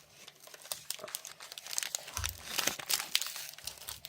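Foil booster-pack wrapper of Pokémon trading cards crinkling and tearing as it is opened by hand: a run of quick crackles and rips.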